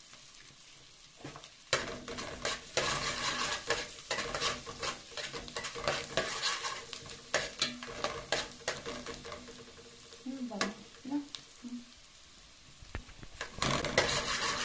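Chopped garlic sizzling in melted butter in a metal pot, with a metal spoon scraping and clinking against the pot as it is stirred. The sizzle is faint at first, the stirring starts about two seconds in, eases off for a few seconds past the middle, and picks up again near the end.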